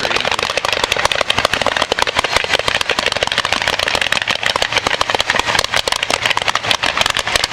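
Fireworks barrage firing continuously: a dense, rapid stream of crackling pops, many reports a second, with no break.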